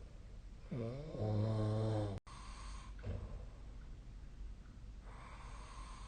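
A sleeping person snoring: one loud, buzzing snore about a second in, lasting about a second and a half and cutting off abruptly, then quieter breathing with a soft hissing breath near the end.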